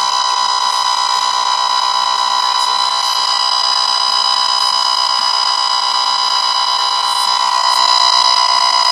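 Cobra XRS 9970G radar detector sounding a steady, unbroken alert tone through its small speaker, a little louder near the end. This is a false alert set off by the toll booth's transmitters.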